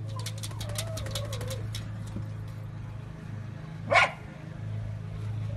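Dogs behind a glass door whining faintly, with light clicks in the first two seconds, then one short sharp yap about four seconds in.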